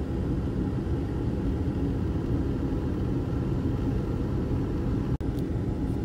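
Steady low road rumble of a car driving at highway speed, heard from inside the cabin: tyre and engine noise. It drops out for a moment about five seconds in.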